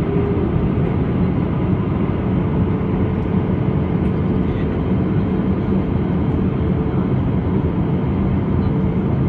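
Airbus A320-214 in flight: the steady drone of its engines and the rushing airflow, with a faint hum held at one pitch throughout.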